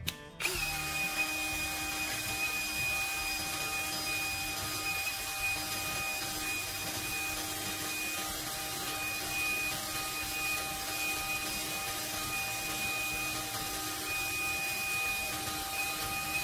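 Makita cordless drill running steadily, spinning a rod whose tip grinds against sandpaper on a wood block: an even motor whine over a rubbing hiss. It starts about half a second in.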